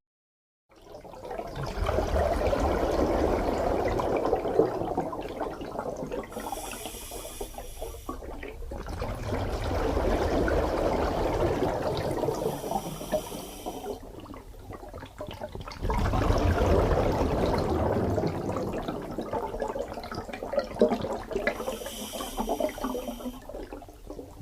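Rushing, splashing water that swells in three long surges, each ending with a brief high hiss.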